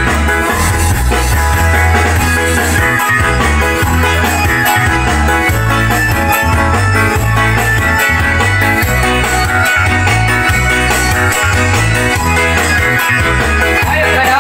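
An Iban pop song plays, with guitar over a steady, stepping bass line.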